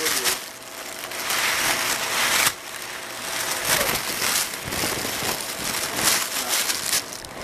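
Loud rustling and crackling noise that cuts off sharply about two and a half seconds in, then goes on more quietly.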